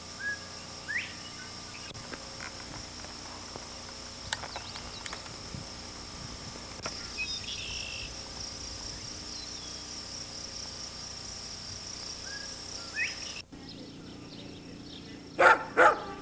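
Steady high-pitched insect drone across summer farm fields, with a few short bird calls. After an abrupt cut near the end, a large white dog barks twice, loudly.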